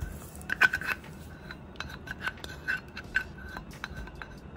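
Light metallic clicks and taps, about two a second, as a small steel cup knocks against the rim of a saucepan while corn syrup drains out of it.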